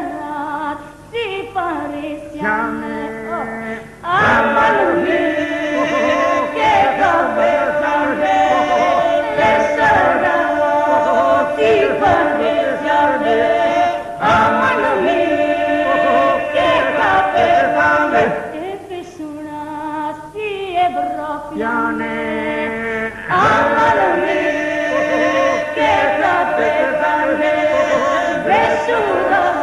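Traditional Epirus polyphonic song sung unaccompanied by a group of voices, in long held phrases with a couple of short lulls.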